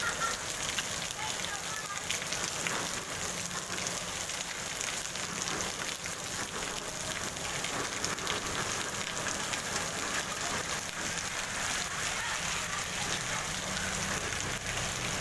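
Heavy rain falling steadily on a wet paved street and its puddles, an even hiss that holds throughout.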